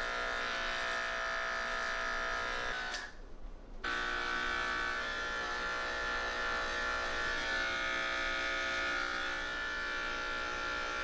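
Electric pet grooming clippers running with a steady buzz. They stop about three seconds in and start again about a second later.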